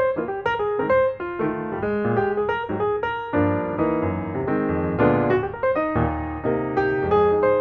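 Background piano music: a melody of quick notes over chords, turning to fuller held chords partway through.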